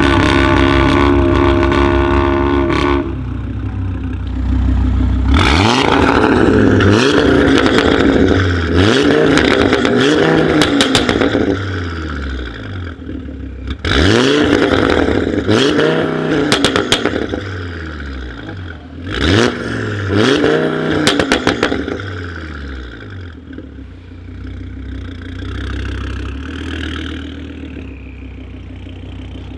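Audi RS3's turbocharged five-cylinder through a custom straight-pipe exhaust, revved hard: a held high rev at the start, then three bursts of quick rising-and-falling throttle blips, each broken by strings of sharp crackles and pops from its crackle map. Near the end it settles to a low, quieter idle.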